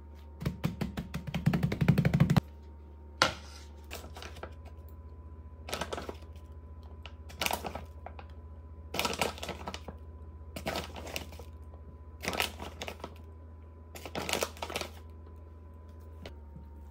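Paper towel rustling and crinkling as it is pressed down over wet shrimp for about two seconds. Then a bag of frying mix crinkles and flour hisses into a glass bowl in six short pours, about one every second and a half.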